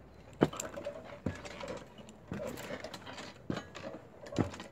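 Footsteps knocking on the wooden planks of a small chain-railed footbridge, about one step a second, five in all.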